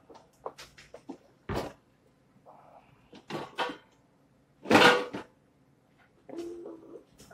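Scattered knocks, clicks and clatter of items and fittings being handled at a deli display case, with one louder, longer clatter about five seconds in.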